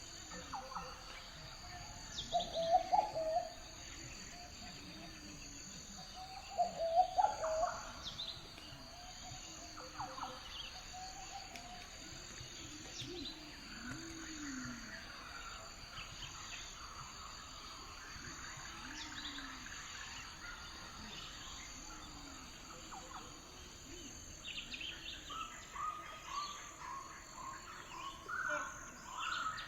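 Outdoor lakeside ambience: several birds calling over a steady, high-pitched drone of insects. Two louder bursts of calls come a few seconds in and again around seven seconds, and a quick run of repeated calls starts near the end.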